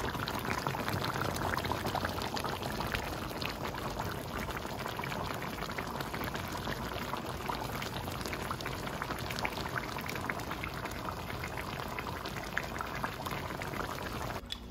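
Kare-kare peanut-sauce stew simmering in a pan, with a dense crackle of many small bubbles popping.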